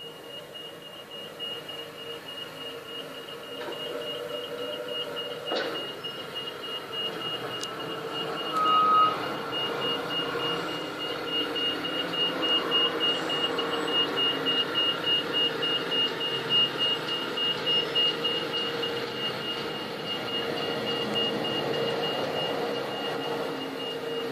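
Volvo refuse truck reversing: its reversing alarm sounds a steady run of high beeps over the diesel engine running, growing louder as the truck comes closer, with a brief lower tone about nine seconds in.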